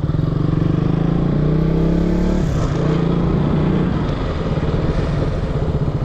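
Motorcycle engine running under way, the revs rising a little from about a second in and easing back near two and a half seconds, then holding steady.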